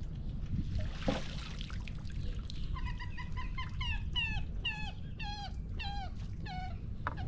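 An animal calling: a run of about nine short yelping calls, each falling in pitch, roughly two a second, starting a little under three seconds in.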